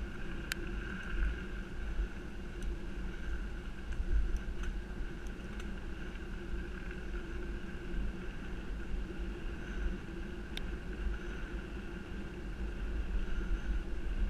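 Wind buffeting the microphone over the rolling tyre noise of a bike moving fast on a dirt track, with a steady hum and a few sharp clicks as the bike jolts over bumps.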